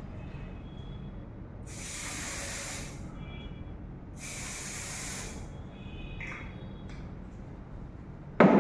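Aerosol can of red dye penetrant spraying in two hissing bursts, about a second and a half apart, as the penetrant is applied to a weld test specimen. A sudden louder sound comes near the end.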